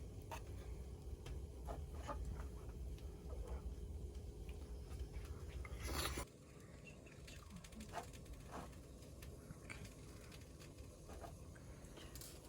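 Faint scattered clicks and taps over a low rumble, with one louder clatter about six seconds in, after which the rumble drops away.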